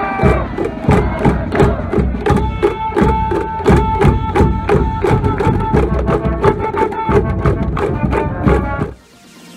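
High school cheering band in the stands playing a brass tune over a steady drum beat, with long held horn notes in the middle; it cuts off abruptly near the end.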